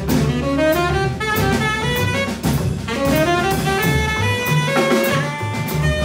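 Live jazz quartet playing: saxophone runs climbing in pitch over double bass and drum kit, with regular cymbal strokes about twice a second.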